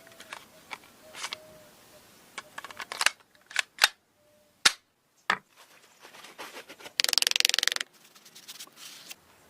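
A series of sharp mechanical clicks and snaps from small hard parts being handled and fitted, with a rapid rattling burst about seven seconds in.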